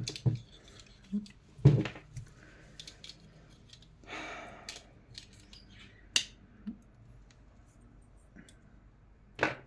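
Handling noise of fan parts and tools during disassembly: a few separate clicks and knocks of hard parts, with a short scraping rustle in the middle.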